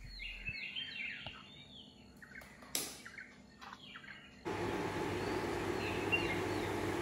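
Small birds chirping, with one sharp click a little before three seconds. At about four and a half seconds a steady hiss of oil frying in a pot cuts in, and fainter chirps continue over it.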